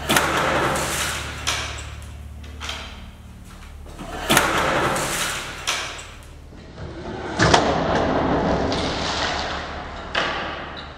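A series of sudden heavy thuds a few seconds apart, each trailing off into a long hiss.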